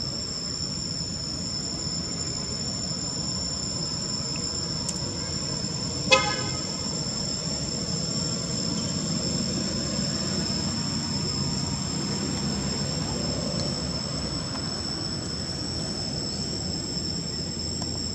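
A steady high-pitched insect drone, two held pitches, over a low traffic-like rumble. About six seconds in there is one short vehicle horn toot, the loudest sound here.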